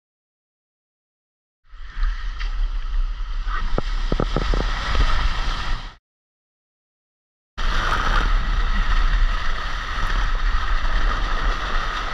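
Water rushing down a water slide during a ride, with a heavy low rumble of wind and water on the microphone, heard in two stretches broken by short gaps of dead silence.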